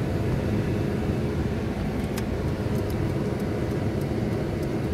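Steady low rumble of a Ford pickup truck's engine and tyres heard from inside the cab while driving, with a few faint ticks.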